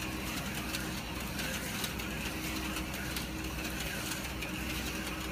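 Slot cars' small electric motors whirring steadily as the cars run around a plastic track, with occasional light clicks.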